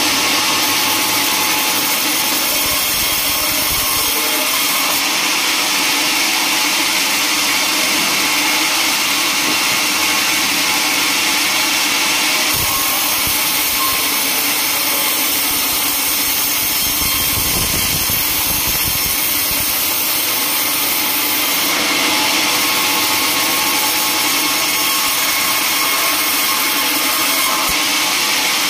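Band sawmill's blade cutting lengthwise through a teak log: a steady, loud hiss of the cut over the running machine, with a brief low rumble about two-thirds of the way through.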